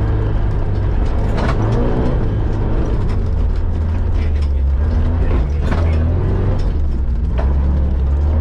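Off-road-prepared Mitsubishi Pajero's engine running steadily at low revs as it crawls along a rough forest track, with a few sharp knocks and rattles from the body and suspension over the bumps.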